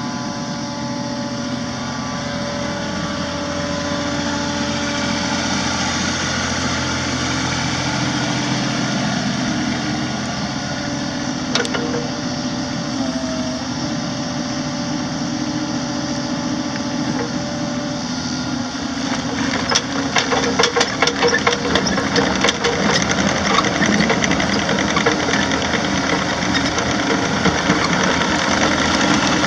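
Kubota D1503 three-cylinder diesel engine of a compact excavator running steadily. A single sharp click comes about twelve seconds in, and the last third is louder, with rapid rattling clicks over the engine.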